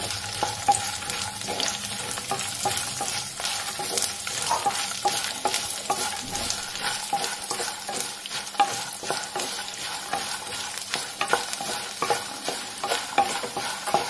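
Phool makhana (lotus seeds) frying lightly in a little oil in a pan while being stirred: a steady sizzle with frequent irregular clicks and scrapes as the seeds are turned against the pan.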